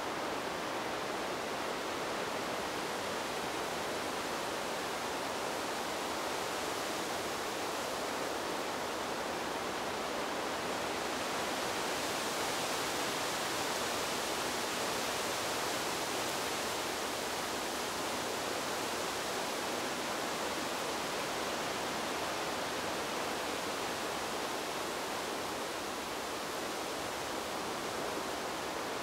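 Steady rushing wind noise, added as sound design over the flight footage, swelling slightly about halfway through. There is no motor or propeller whine.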